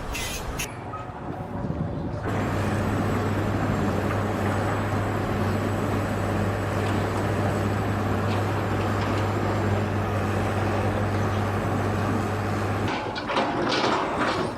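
A heavy engine running steadily with a low, even hum. It starts abruptly about two seconds in and cuts off near the end.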